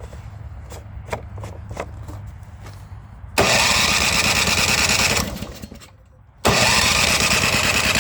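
Snowblower's small gas engine being cranked over twice, each attempt lasting about two seconds and dying away without catching. It won't start: after long storage the carburettor's tiny jets are clogged with deposits from old gas.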